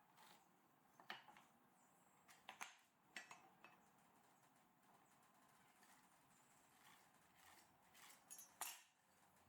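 Faint, scattered light clicks and knocks, as of tools or wooden parts being handled on a bench: a cluster from about one to four seconds in and another short cluster near the end.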